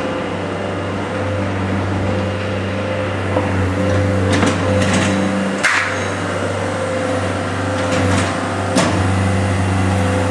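A steady low mechanical hum with a few fainter steady tones above it, broken by a handful of short knocks and clicks from about four to nine seconds in.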